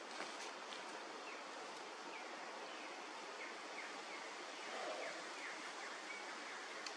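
Steady outdoor ambience of bushland: a constant rushing hiss, with a run of faint, short, falling bird chirps from about a second in until near the end.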